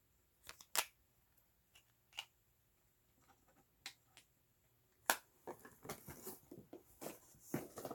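Faint clicks and taps of eyeshadow packaging being handled, a few spaced-out ones at first, then a busier run of clicks and light rustling over the last three seconds.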